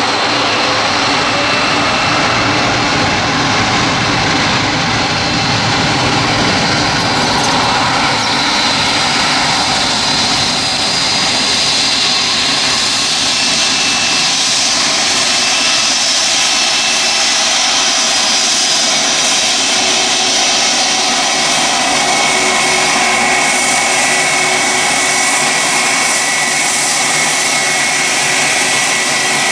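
Turkish Airlines Boeing 777-300ER's twin GE90 turbofans at takeoff thrust during the takeoff roll: a steady, loud jet roar with a high fan whine, the whine growing stronger about two-thirds of the way through.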